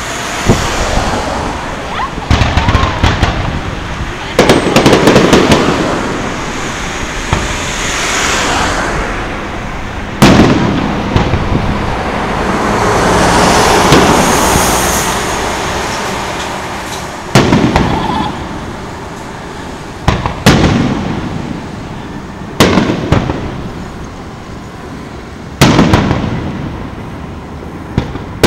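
Aerial firework shells bursting overhead: a series of about ten sharp booms a few seconds apart, each followed by a long rolling echo that slowly fades.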